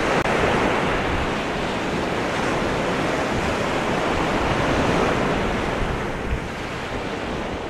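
Surf washing onto a sandy beach, a steady rush of waves that eases off near the end, with wind buffeting the microphone.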